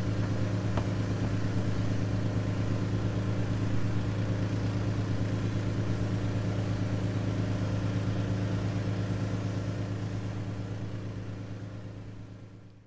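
A fishing boat's inboard engine idling steadily with a fast, even beat. It fades out near the end.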